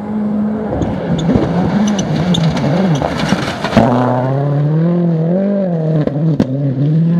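Ford Focus WRC rally car's turbocharged four-cylinder engine revving up and down through gear changes as the car passes at speed on a dirt stage. Loose dirt and stones rush from the tyres for the first few seconds. After that the engine note steadies as the car pulls away, with a single sharp crack near the end.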